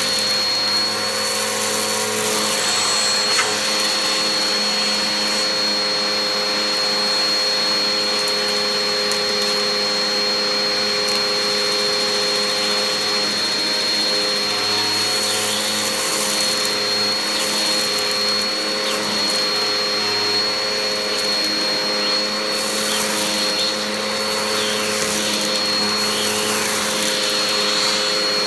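Vacuum cleaner running steadily with a high motor whine while a hose attachment is worked over a debris-covered shag rug. Stretches of gritty crackle come midway and toward the end as debris is drawn up.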